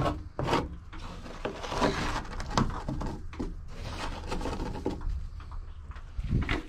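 A cat litter scooper scraping and knocking through chicken coop bedding in repeated short strokes, with chickens clucking softly.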